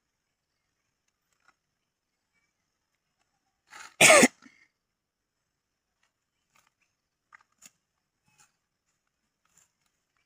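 A single short, loud cough about four seconds in, then a few faint ticks; otherwise near silence.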